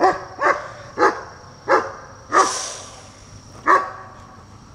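A dog barking six times in about four seconds, the barks coming further apart toward the end.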